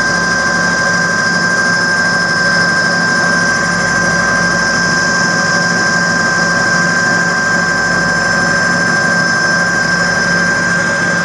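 Cue lathe motor running at a steady speed: a constant whine over a low hum. It spins a cue shaft while the leather tip is scuffed with 320-grit sandpaper.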